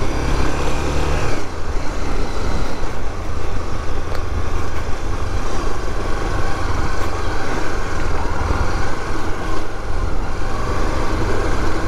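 Motorcycle engine running while riding along a dirt road, with steady wind rumble on the microphone; the engine note shifts about a second and a half in.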